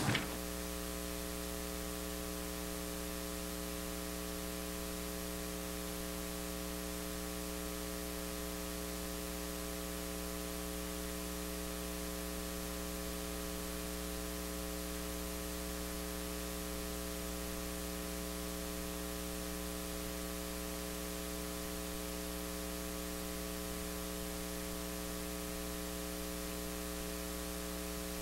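Steady electrical mains hum with a faint hiss: an even buzz of several fixed tones that never changes.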